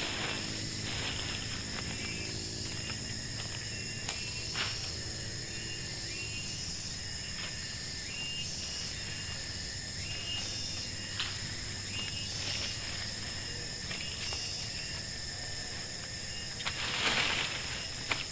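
Forest ambience: a steady high insect drone with many short repeated chirps and a few sharp clicks. A louder rustle comes near the end.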